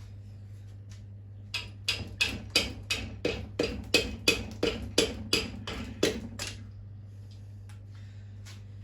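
Hammer tapping repeatedly on a bolt screwed into a connecting rod's big-end cap, knocking the cap loose from the crankshaft journal: about fifteen sharp taps, roughly three a second, stopping about two seconds before the end.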